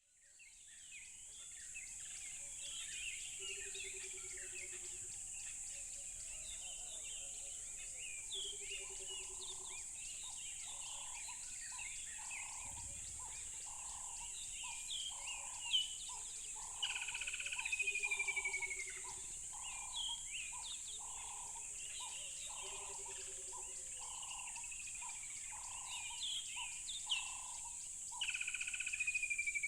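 Several birds chirping and calling over a steady high insect drone, fading in at the start. A lower note repeats about twice a second through the middle, and twice a louder whistled call slides down in pitch, once near the middle and once near the end.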